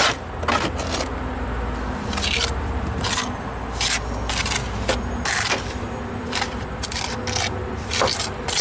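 Steel mason's trowel scraping and spreading rapid-set mortar onto a concrete block chimney in many short, irregular strokes, plastering a patch.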